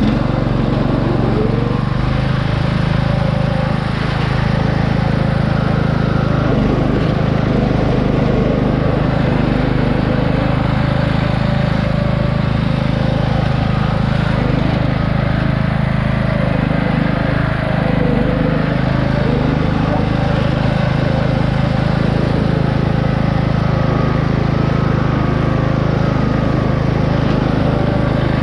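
Craftsman riding lawn mower's 17.5 hp engine running at a steady speed.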